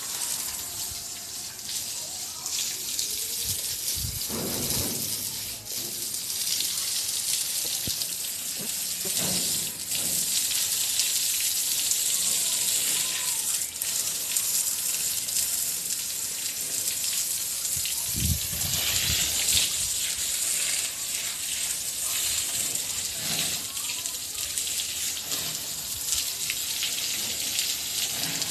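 Water running and splashing steadily onto a Murrah buffalo as it is washed, with a few brief low knocks or scrapes a few seconds in and again past the middle.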